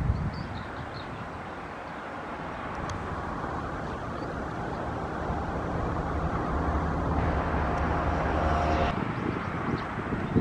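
Engine noise of a passing motor vehicle, a steady hum that swells over several seconds and breaks off abruptly near the end, over outdoor background noise.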